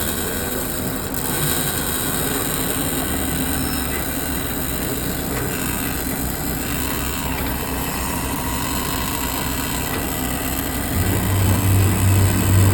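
Excavator's diesel engine running steadily, getting louder with a stronger low hum about eleven seconds in.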